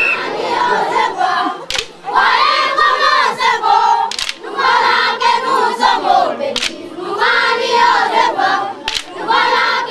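A group singing a chant together in short repeated phrases, with a sharp strike about every two and a half seconds, four times, in time with the song.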